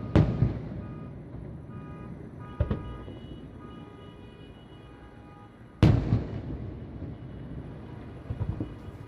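Fireworks shells bursting about a kilometre away: three heavy booms, just after the start, about two and a half seconds in and about six seconds in, the last the loudest, each echoing away. A short rattle of smaller pops follows near the end.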